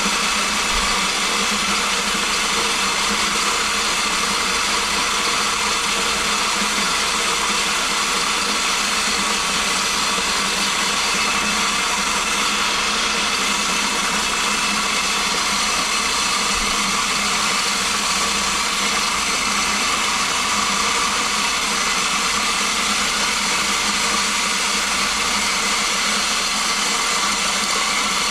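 Electric feed grinder running steadily under power, grinding corn into coarse feed.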